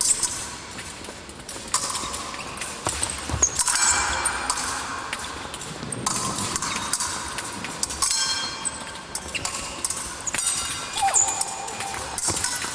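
Épée blades clashing during a fencing bout: repeated sharp metallic strikes, many with a brief high ring, over fencers' quick footsteps on the piste.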